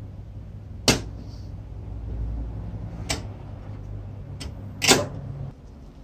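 Sharp clicks of metal typewriter parts being handled, four in about four seconds, the first and last loudest, over a low steady hum that stops shortly before the end.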